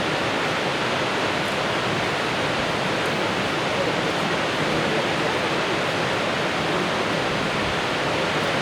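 Fukuroda Falls, a large multi-tiered waterfall about 120 m high, sending down a steady, even rush of falling water.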